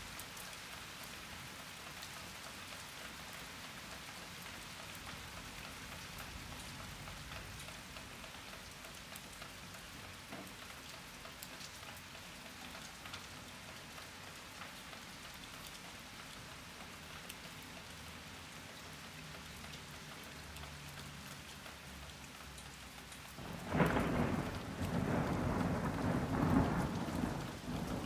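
Steady rain falling. Near the end, a sudden loud clap of thunder breaks in and rolls on as a rumble that swells and fades to the end.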